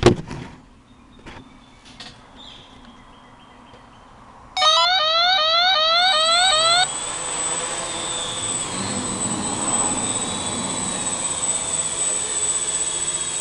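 Quadcopter's electric motors and propellers running with a steady high whine as it lifts off the ground, from about six seconds in. Before that there is a thump at the very start, then a fast run of rising electronic chirps lasting about two seconds.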